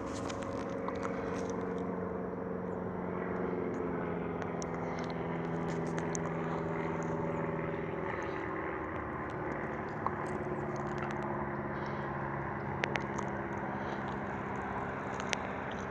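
Vehicle engine running with a steady hum, its pitch stepping a little lower a couple of times, over a faint background of traffic noise, with a few light clicks.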